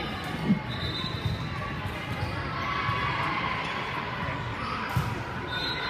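Spectators chattering in a large gym, with two sharp thuds of a ball on the wooden floor, about half a second in and again about five seconds in.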